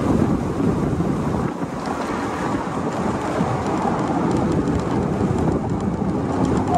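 Steady wind rush and road noise in the open cabin of a moving four-cylinder Chevrolet Camaro convertible with its top down, the car's engine running underneath.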